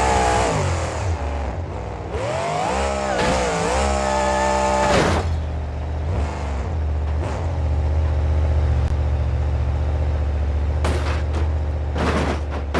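A vehicle engine revving up and down several times, then settling into a steady low rumble that cuts off sharply at the end.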